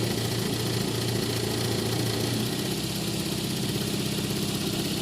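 Toyota Corolla engine idling steadily, its low note shifting slightly about halfway through. This is the idle being checked after work on its very low idle.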